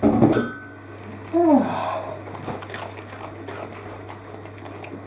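A short loud vocal sound at the start and another with a falling pitch about a second and a half in, then light clicks and clinks of a dog eating from a food bowl.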